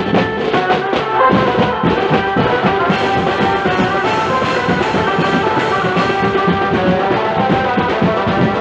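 Live procession band music: drums and cymbals beating fast and continuously, with a sustained melody line held over them.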